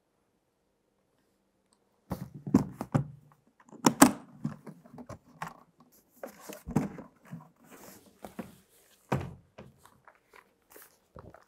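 Handling noises: a string of knocks, thumps and rustles as a box lid is opened and things are taken out of it. The noises start about two seconds in, and the loudest knock comes about four seconds in.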